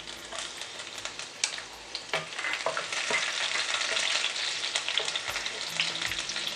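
Chopped garlic sizzling and crackling in hot oil in a kadhai, growing louder a couple of seconds in, while a wooden spatula stirs it around the pan.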